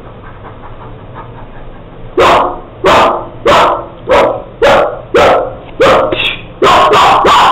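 Loud barking, close to two barks a second, starting about two seconds in and running together near the end.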